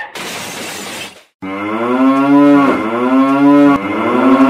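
Cow mooing: three long, low moos in a row, beginning about a second and a half in, with a short break between each.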